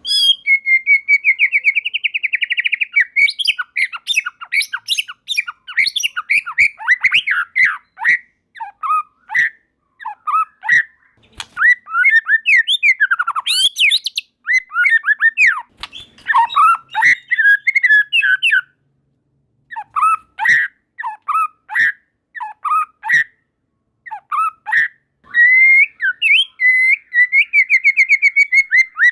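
White-rumped shama (murai batu) singing a loud, varied song of whistled glides, fast runs of quickly repeated notes and sharp clicking notes. The song breaks off briefly about two-thirds of the way through.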